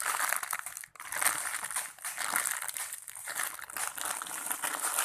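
Crinkling and rustling as a squishy toy shaped like an ice cream is handled close to the microphone, an irregular run of scratchy crackles.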